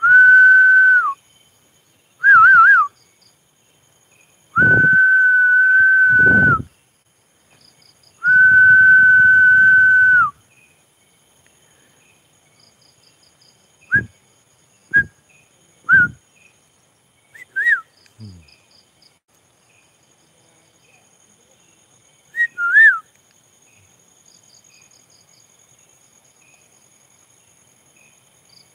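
A man whistling: four long, level whistled notes in the first ten seconds, each dropping in pitch at the end, one warbling, then a few short whistled chirps spread over the rest. Crickets chirr steadily in the background.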